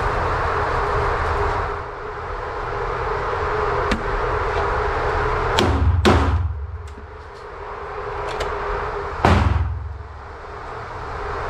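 Steady whir of an indoor range's electric target carrier and ventilation. Then three sharp gunshot bangs, each with a booming echo: two close together about halfway through and one near the end.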